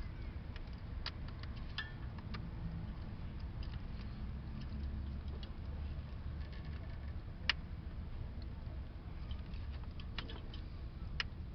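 Scattered sharp clicks and light taps of pliers working a stuck spark plug wire boot, with a louder single click about halfway through, over a steady low background rumble.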